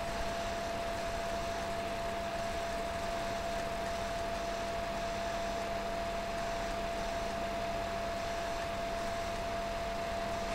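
Steady hiss of recording background noise with a faint constant hum tone running under it, no events or changes.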